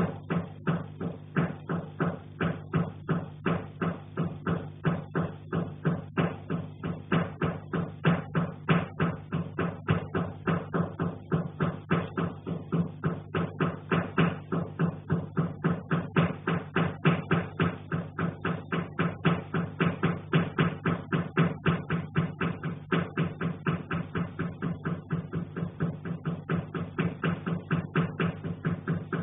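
Rhythmic dull thumping heard through the ceiling from the attic, about three to four even beats a second without a break, over a steady low hum.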